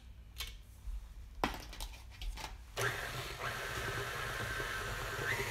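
A few light clicks and knocks, then about three seconds in a KitchenAid tilt-head stand mixer switches on and runs with a steady whir, its pitch stepping up twice as the speed is raised. It is beating flour into creamed butter and cheese.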